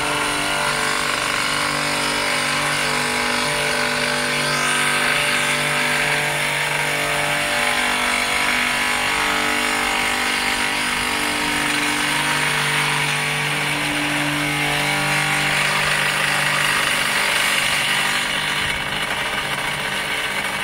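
Double-sided plate edge chamfering machine cutting a bevel along a steel plate's edge: a steady electric-motor hum under a continuous hiss of the cutter working the metal. The highest part of the hiss eases off near the end.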